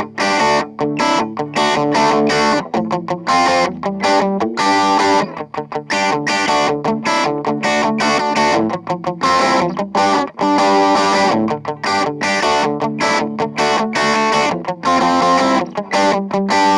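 Electric guitar played through a Cort MX15 practice combo amplifier with an overdriven tone: a riff of short, clipped notes with brief gaps between them.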